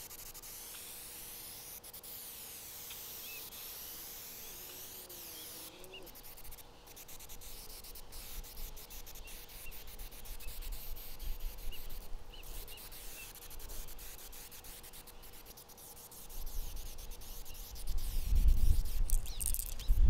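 Aerosol spray-paint can hissing as paint is sprayed on, in spurts with short pauses, strongest in the first several seconds. A low rumble grows louder over the last few seconds.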